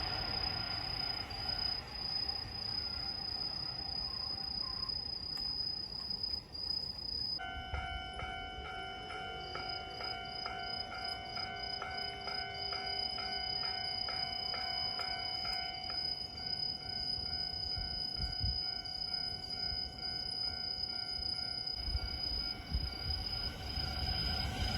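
Level-crossing warning bell ringing in an even repeated ding-ding, about two strikes a second, starting about a third of the way in and stopping shortly before the end, over a steady high trill of night insects. A train's low rumble starts to rise near the end.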